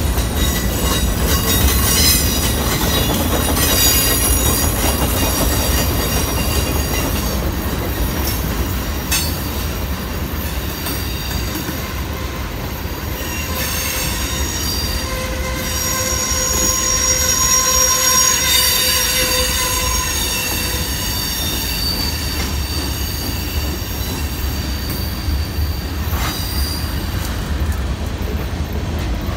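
CSX mixed freight train rolling past with a steady low rumble, its wheels squealing in thin high tones that come and go, clearest midway.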